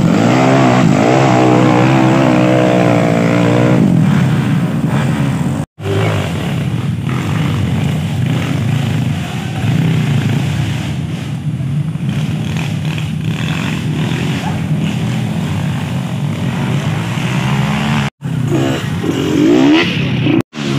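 Off-road dirt bike engines revving, rising and falling in pitch as they are ridden up a muddy slope, in several clips cut together with abrupt breaks.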